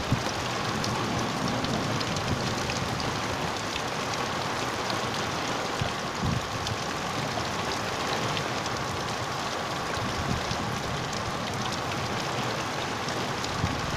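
Heavy rain pouring steadily: a dense, even hiss with scattered drop hits.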